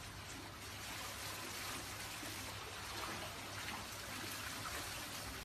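Faint, steady trickling and lapping of water in an infinity pool.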